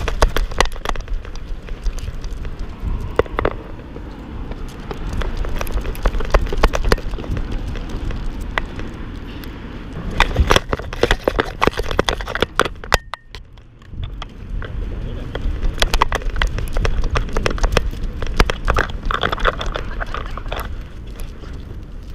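Harness-mounted action camera on a walking bull terrier, jostled by the dog's steps: a dense run of irregular clicks, knocks and rattles over a low rumble of wind and handling noise. It goes quieter for about a second just past the middle.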